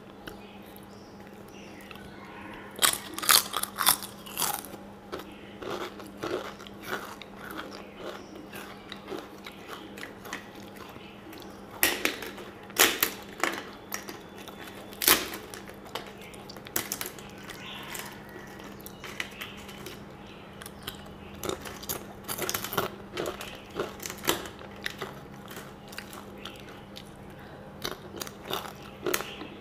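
Close-up crunching and chewing of fried papad (papadum) with rice, in clusters of sharp crisp crunches with softer wet chewing between, over a faint steady hum.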